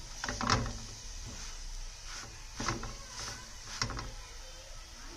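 A plastic spatula pressing and pushing a roti around a frying pan, scraping and knocking against the pan four or five times, loudest about half a second in. Underneath is a steady high sizzle of the roti frying in fat.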